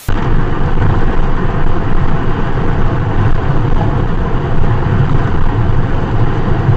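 Steady rumble of tyre and wind noise from a car travelling at highway speed, picked up by its dashcam.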